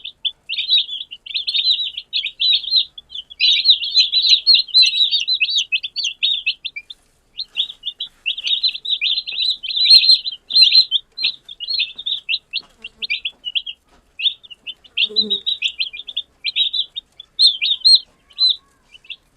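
Newborn chicks peeping rapidly and continuously, many overlapping high chirps, with brief lulls about a third of the way in and about two-thirds through.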